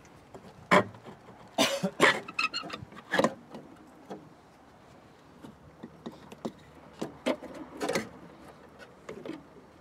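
Irregular metal clicks and clunks as a brake master cylinder is worked off the brake booster and its brake lines are pulled free, with a short metallic ring about two and a half seconds in.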